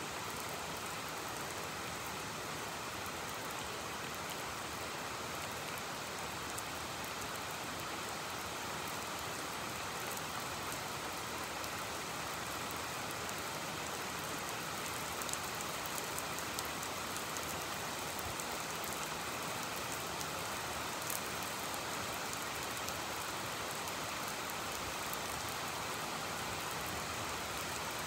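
Heavy rain falling steadily as an even hiss, with scattered faint taps of individual drops.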